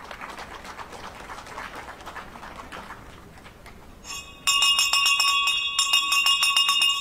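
Scattered applause, then about four and a half seconds in a bell suddenly starts ringing loudly. It is struck rapidly over and over so that its tones ring on continuously.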